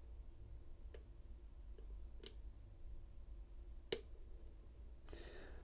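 A few faint, sharp clicks of a KW1 Lishi pick working the pin stack of an LSDA padlock held in a false set. The loudest click comes about four seconds in.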